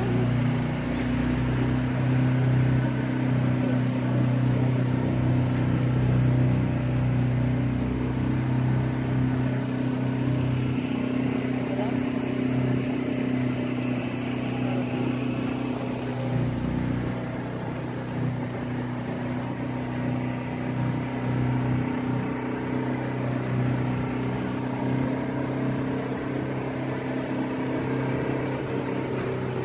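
Small boat's engine running steadily, a low even hum.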